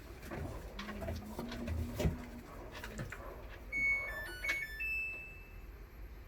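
A short run of electronic beeps at several pitches, a little jingle like a washing machine's control panel, starting about four seconds in, with light handling knocks around it.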